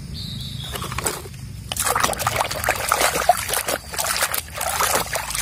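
Water sloshing and splashing in a plastic tub as a muddy plastic toy truck is scrubbed and swished by hand, faint at first and busier from about two seconds in.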